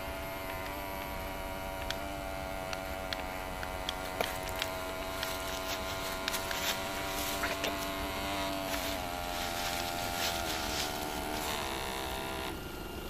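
Electric motor of a ProBoat BlackJack 9-inch RC boat running at steady throttle with a steady whine while it pushes a disabled boat, with a few faint clicks. The whine stops shortly before the end.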